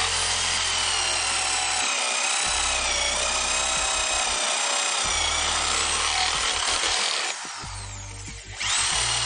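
A 760 W corded electric rotary hammer drill bores into a wooden plank with a spade bit: a loud, steady motor whine whose pitch sags a little as the bit bites into the wood. It cuts out about seven seconds in and spins back up, rising in pitch, near the end.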